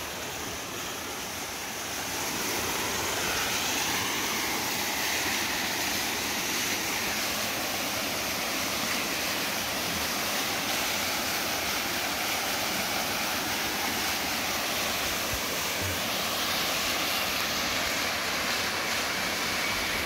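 Small waterfall cascading over rock slabs into a pool: a steady rush of falling water, a little louder from about two seconds in.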